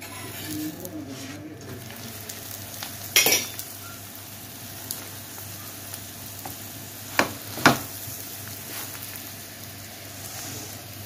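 Ghee sizzling under a paratha frying on a hot tawa griddle. A metal turner clinks sharply against the pan three times: once about three seconds in and twice close together a little past halfway.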